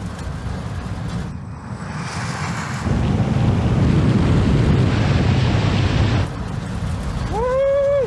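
Rushing wind and road noise of the Rimac Nevera electric hypercar at speed on a runway drag strip, without the pitched note of a combustion engine. Near the end a short pitched sound rises and then falls.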